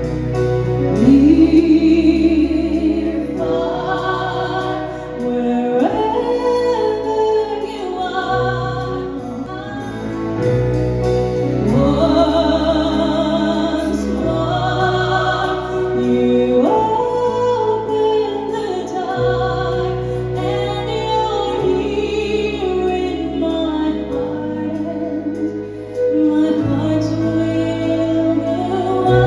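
A live band performing a song: a woman singing lead over electric guitar, bass guitar, drums and keyboard.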